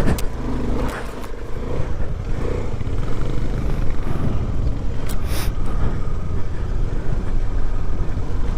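Motorcycle engine running at low speed over a rough, icy track, with a few short clatters near the start and about five seconds in.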